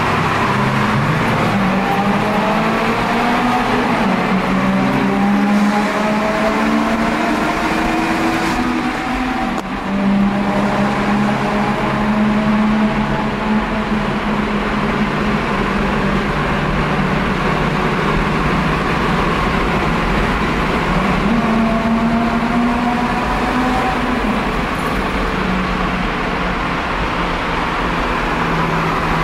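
Honda Civic Type R EP3's 2.0-litre four-cylinder engine pulling under acceleration, heard from inside the cabin: the revs climb for several seconds, drop sharply at a gear change about nine to ten seconds in, then hold fairly steady before climbing again a little past twenty seconds.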